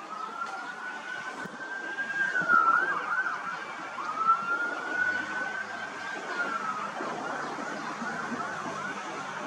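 A siren wailing, its pitch rising and falling slowly twice over.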